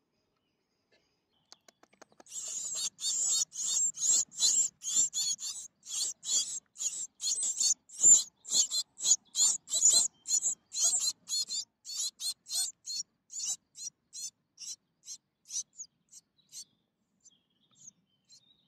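Great tit nestlings begging in a nest box: a rapid run of short, high-pitched calls, a few a second, starting about two seconds in, then thinning out and stopping near the end.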